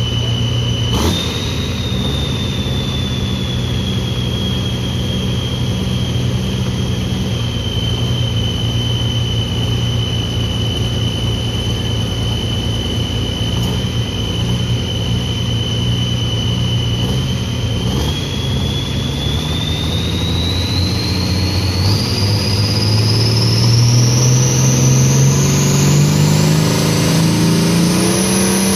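Diesel engine of a pulling tractor running at the sled, with a high steady turbo whistle over it. In the last ten seconds the engine revs up and the whistle climbs sharply in pitch with it.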